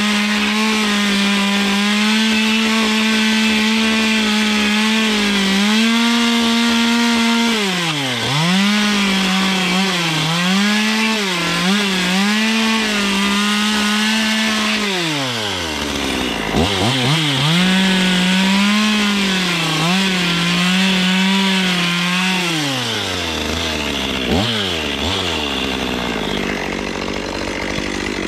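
Stihl chainsaw running at high revs as its chain gouges and roughs up the end grain of a fir board to give it a textured, rustic edge. The revs dip and recover several times, fall to idle about halfway through, rise again, and drop back to idle near the end.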